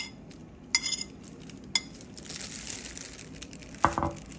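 Metal spoon working a thick, wet paste in a stainless-steel mesh strainer: three sharp clinks about a second apart, each ringing briefly, then a scraping rasp against the mesh, and a dull knock near the end.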